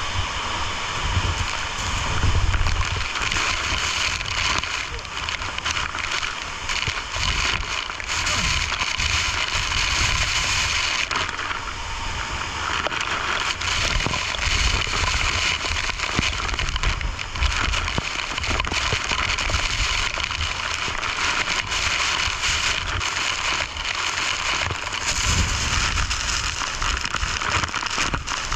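Waterfall rushing: a steady, unbroken roar of falling water, with an uneven low rumble underneath.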